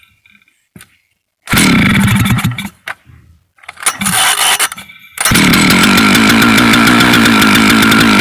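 Vintage Stihl 051 AV two-stroke chainsaw catching briefly twice and cutting out, then firing about five seconds in and running steadily. The long-dormant saw starts but won't keep running for long, a fault the owner is unsure whether to put down to the carburettor or the crank seals.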